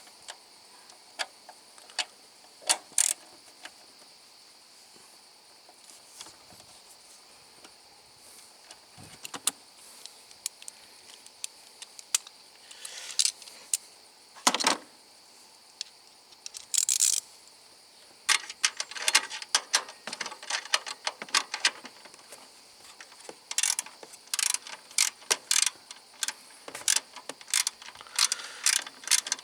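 Scattered sharp clicks and bursts of metallic clatter, like hand tools and parts being handled, coming thicker in the second half, over a steady high chirring of crickets.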